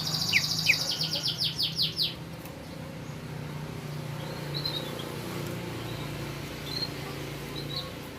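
Green leafbird (cucak ijo) calling: a fast run of repeated high notes for about the first two seconds, then a few faint short chirps. A steady low hum runs underneath.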